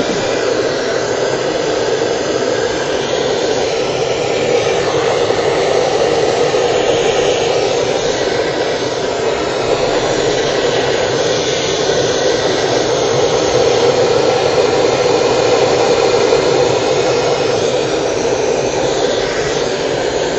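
Handheld gas blowtorch burning with a steady, unbroken noise, its flame held on a crucible to melt a borax flux coating into a glaze.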